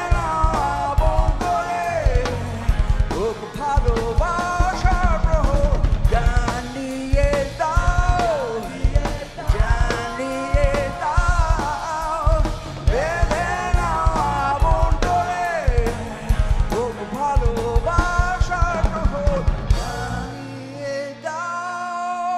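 Live rock band playing: a male vocalist sings over electric guitar, bass, keyboard and a driving drum kit. About twenty seconds in, the drums stop and a held chord rings on.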